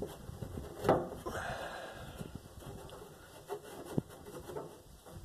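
Handling sounds as a rubber fuel hose is worked into place: a sharp knock about a second in, then rubbing and rustling, and a lighter knock later.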